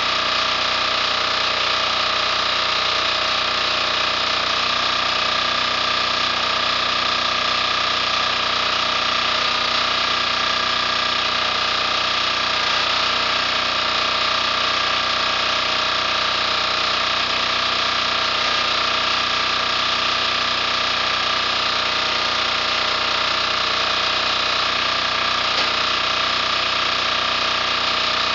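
A 10 hp KOOP single-cylinder air-cooled diesel engine on a log splitter running steadily at constant speed, with no change in pitch or level.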